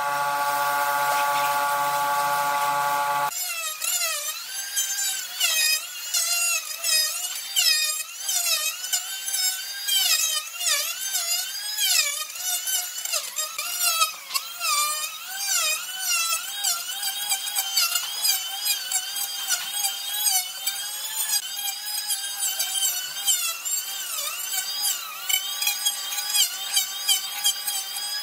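A handheld electric planer shaving across a wooden tabletop, its motor pitch dipping and rising again and again as the blades bite into the wood. The first three seconds hold a steady machine hum that changes abruptly into the planing.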